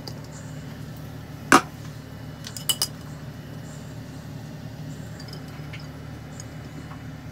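Glass lid of a rice cooker clinking as it is lifted off: one loud clink about a second and a half in, then two quick lighter clinks a second later, over a steady low hum.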